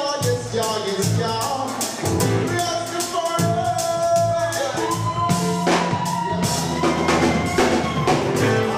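A live band playing: a drum kit with bass drum and snare hits at an even beat, under a steady bass line and a sliding melody line.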